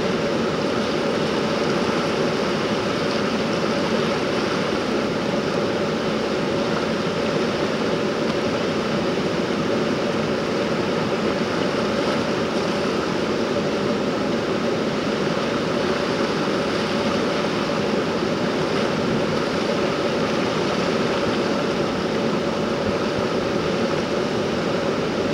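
Fast, turbulent river water rushing steadily over rocks and rapids.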